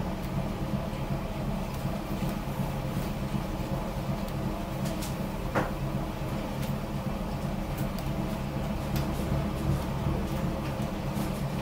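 The car ferry's MWM diesel engine running steadily, heard as a constant low hum inside the wheelhouse. A few faint clicks, and one brief sharp squeak about halfway through.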